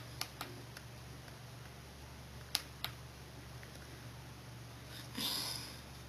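A few light clicks and taps from fingers handling a touchscreen tablet, over a faint steady low hum. A brief soft rush of noise comes about five seconds in.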